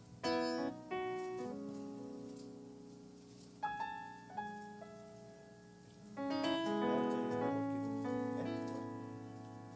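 Soft piano or keyboard playing under a pause in the sermon: chords struck about a quarter second in, a few notes near the middle, and a fuller chord swell about six seconds in, each left to ring and fade.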